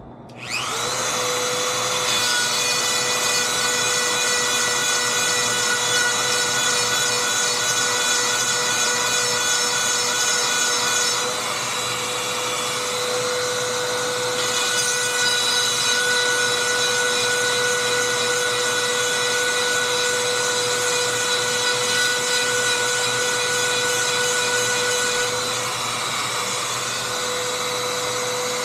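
Dremel rotary tool spinning up and then running steadily with a high whine, its grinding stone sharpening the cutters of a chainsaw chain.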